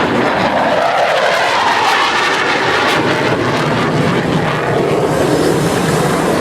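Loud, steady jet noise from Oregon Air National Guard F-15C Eagle fighters' turbofan engines in flight, with the pitch of the roar shifting slowly as they move.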